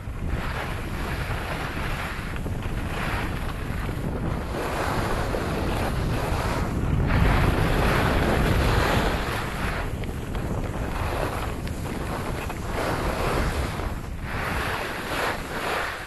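Wind buffeting the microphone of a camera held out on a pole by a skier going downhill, with the hiss of skis on the snow. It swells and eases every second or two and is loudest about halfway through.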